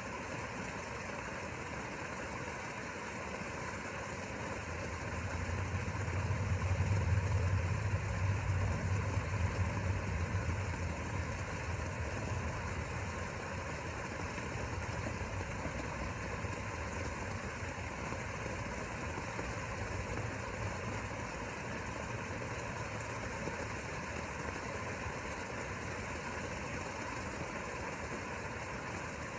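Steady mechanical hum with a low engine rumble that swells about five seconds in, peaks a few seconds later and slowly fades away.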